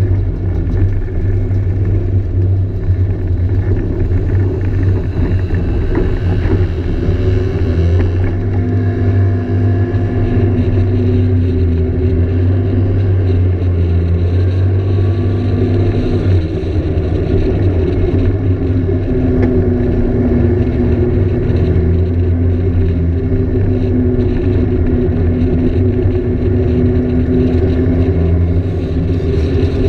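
Scooter engine running at road speed, heard from on board, with the engine's pitch shifting a little about eight seconds in.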